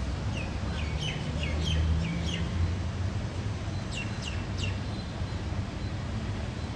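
Steady rain hiss with a bird calling over it: a run of about six short falling chirps in the first couple of seconds, then three quick downward-sweeping notes about four seconds in. A low rumble swells under the rain in the first half.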